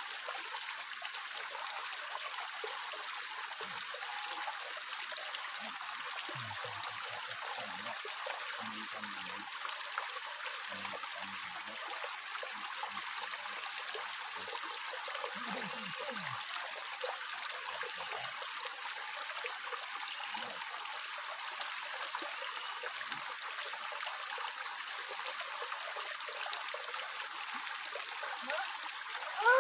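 Shallow rocky stream flowing and trickling steadily over stones.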